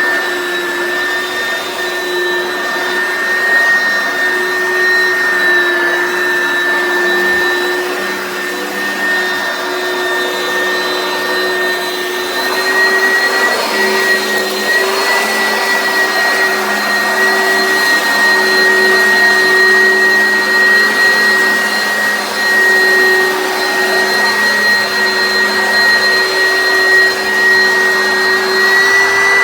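Oreck Commercial XL upright vacuum cleaner running steadily: a motor whine over a rush of air. The whine rises slightly in pitch and gets a little louder about halfway through.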